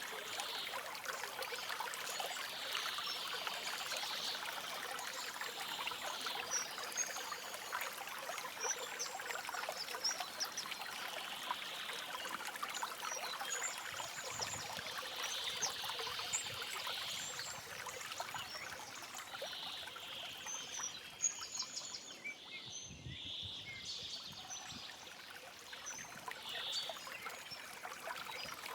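Stream water trickling and running steadily, with short, high bird chirps scattered over it.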